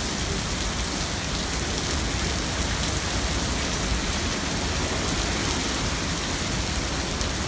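Hurricane rain and wind, a steady, unbroken hiss with a low rumble beneath it.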